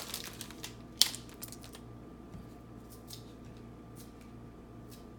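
A trading-card pack's wrapper being opened and its chrome cards handled: rustling with a sharp snap about a second in, then faint scattered clicks of cards sliding against each other.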